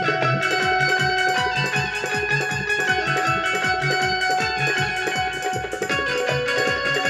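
Instrumental interlude of a live Bundeli folk song: a fast, steady drum beat of about three strokes a second under a sustained keyboard melody, with no singing.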